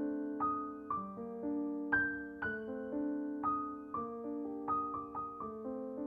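Slow, gentle solo piano music: single notes and chords struck about twice a second, each ringing and fading before the next.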